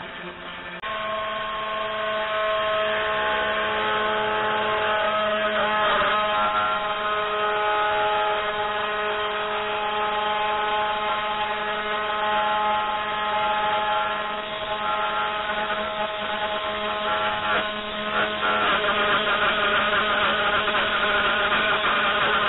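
3018 Pro desktop CNC router milling a round hole in plywood. Its DC spindle motor runs steadily while the stepper motors whine in held tones that change pitch a few times as the feed moves.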